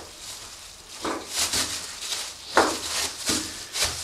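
Boning knife cutting rind and fat from strips of pork on a stainless-steel table: several short scraping strokes.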